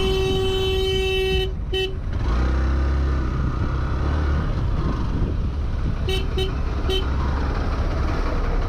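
Vehicle horn sounding: one held blast of about a second and a half at the start, a short toot just after, and three quick toots around six to seven seconds in. Underneath is the steady low running noise of a motorcycle on the move.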